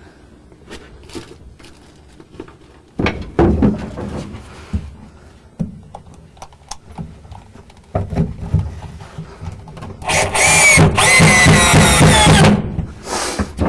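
Power drill driving screws into the sauna's wooden seat pieces to fasten them to the sidewall, in whining bursts that rise and fall in pitch near the end, after several seconds of knocks and handling of the wood.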